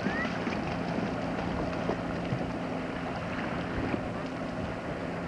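Wind rushing over the microphone, with a steady low drone from a distant speedboat's engine running flat out across the water.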